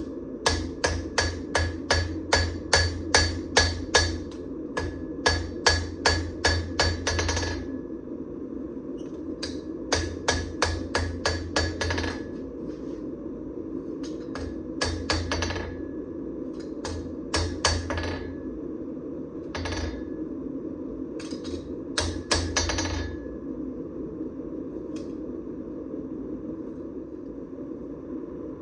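Forging a damascus (pattern-welded) steel knife blade: a quick, even run of ringing hammer blows, about three to four a second, for the first seven seconds or so, then shorter clusters of strikes separated by pauses. A steady low roar runs underneath.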